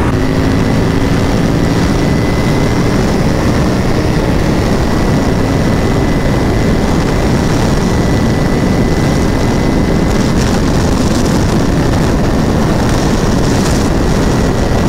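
Motorcycle at high speed on the highway, its engine drone buried in heavy wind rush on the microphone, steady throughout, with a faint thin whine that stops about two-thirds of the way through.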